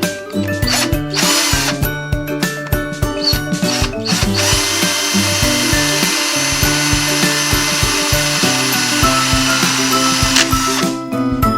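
A small power tool, drill-like, runs briefly about a second in, then steadily for about six seconds from midway, over background music with a steady beat.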